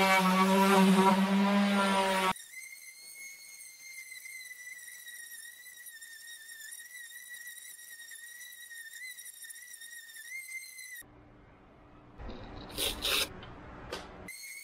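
Random orbital sander running on a plywood panel, a low motor hum with the rasp of sandpaper, for about two seconds. It cuts off suddenly into a steady high whistling tone. Near the end comes a stretch of scraping with a few sharp clicks and rips as a hook-and-loop sanding disc is swapped.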